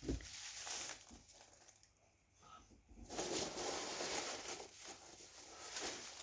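Rustling and scraping of polystyrene packing chips and cardboard as a box is lifted out of its outer shipping box. It comes in two stretches with a near-silent pause of about two seconds between them.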